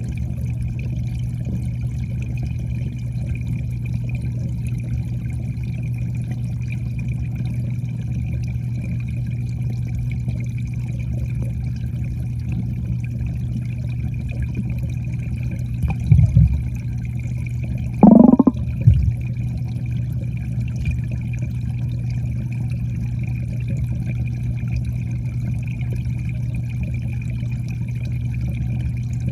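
Underwater sound in a koi pond: a steady low hum with a thin high whine over it. There are a few loud low bumps about 16 seconds in and again about 18 seconds in.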